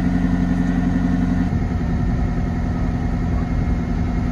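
Narrowboat's inboard diesel engine running steadily under way. Its even low note turns rougher and less regular about a second and a half in.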